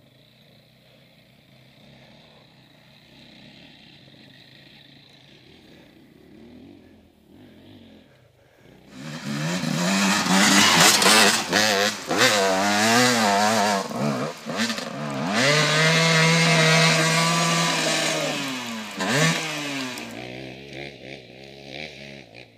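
Enduro dirt bike engine, faint and distant at first, then loud and close from about nine seconds in, revving up and down hard under load on a steep climb. It holds high revs for a few seconds, then drops away and fades near the end.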